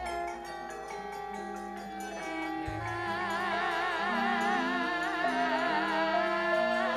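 Javanese gamelan music: female sinden singing with a wide vibrato over sustained gamelan notes, with a deep low stroke a little under three seconds in.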